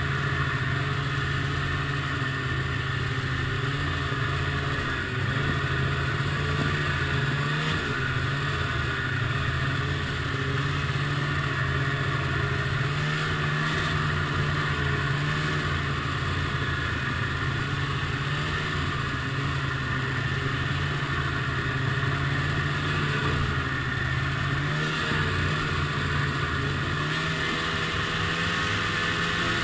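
Ski-Doo MXZ snowmobile's two-stroke engine running steadily at trail speed, its pitch rising and dipping slightly with small throttle changes.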